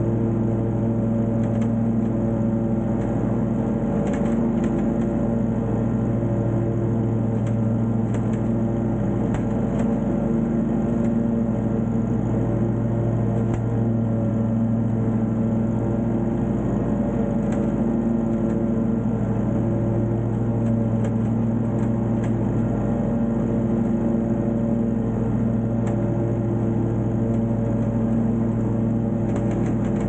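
Wright Intensity 36-inch stand-on mower's gas engine running steadily while mowing, its hum swelling and easing slightly.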